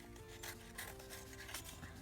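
Soft background music with held notes, over several short scrapes and rustles of paper and card being handled.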